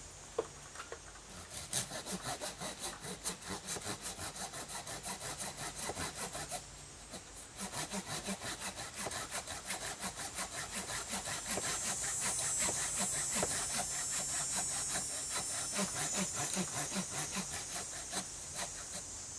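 Hand saw cutting through a standing tree trunk by hand, in quick, even back-and-forth strokes at about four a second, with a short pause about seven seconds in.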